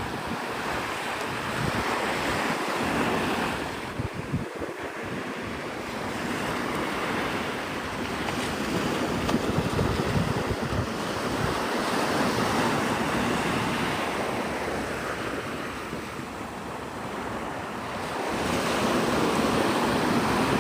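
Surf breaking and washing up the beach, swelling and easing every several seconds, with wind rumbling on the microphone.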